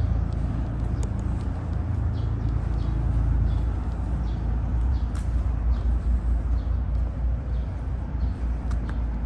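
Steady low rumble of motor vehicle traffic, with scattered light clicks throughout.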